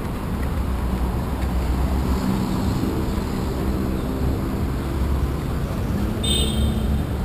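City street traffic: vehicle engines running and passing at a busy intersection, as a steady low rumble. A short high-pitched sound comes about six seconds in.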